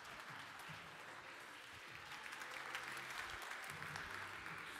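Audience applauding, faint and steady.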